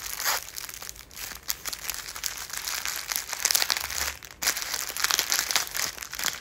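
Plastic film wrapper of a packaged onigiri crinkling and rustling as it is pulled apart and peeled off the nori, with a brief pause about four seconds in.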